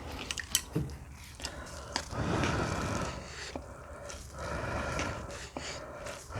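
Close-miked eating sounds: small mouth clicks and wet chewing, with two longer noisy stretches about two seconds in and again past four seconds.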